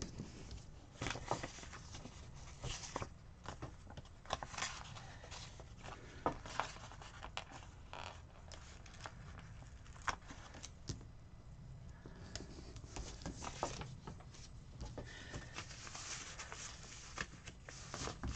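Paper handling while stickers are peeled from a sticker sheet and pressed onto a planner page: soft, scattered rustles, crinkles and light taps, with a denser stretch of rustling near the end.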